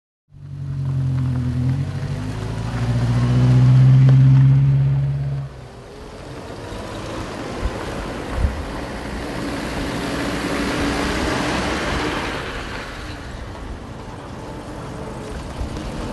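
A vehicle engine running, building to its loudest about four seconds in, then cut off abruptly. It is followed by a steady rushing noise that swells and fades, with two short knocks.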